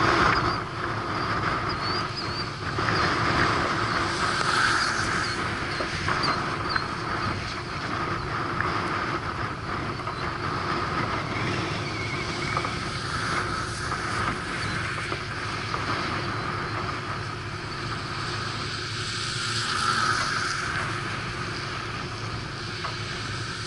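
Steady wind rushing over the microphone, rising and falling in gusts, with faint high chirps in the first few seconds.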